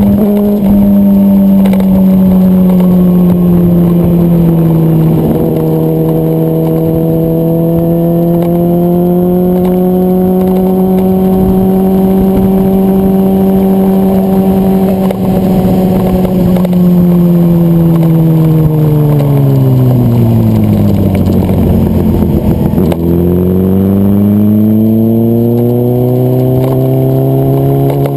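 Motorcycle engine running under way at a steady pitch, then falling away over several seconds past the middle as the bike slows, and climbing again near the end as it picks up speed.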